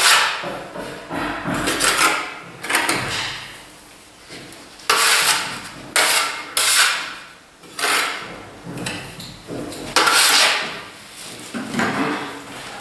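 Steel plastering trowel scraping and knocking on a metal hawk as gypsum plaster is worked and loaded: about ten separate scrapes at irregular intervals, each starting sharply and fading away.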